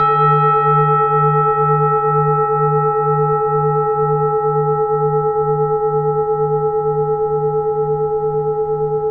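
A singing bowl struck once, ringing on as one long, slowly fading tone whose low hum wavers about twice a second.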